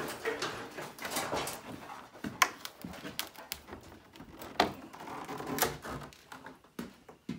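Knocks, rattles and scrapes of a sheet-metal body panel being handled, gripped and lifted, with several sharp clunks.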